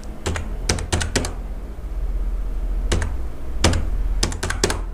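Computer keyboard keys typed in short, irregular runs of sharp clicks as a phone number's digits are entered, with a low steady hum underneath.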